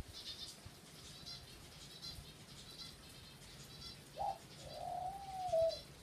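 Pet parrot calling: faint, short high chirps repeating every half second or so, then about four seconds in a brief rising note and one long smooth whistle-like call that dips in pitch at the end.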